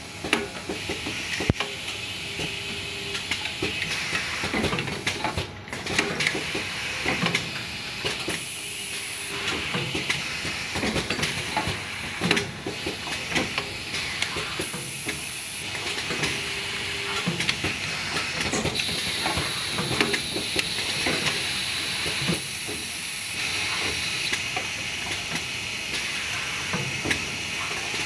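Automatic printing and labeling machine running on a factory line: a steady hiss with frequent irregular clicks and clacks, a short low tone every several seconds, and bursts of high hiss about every seven seconds.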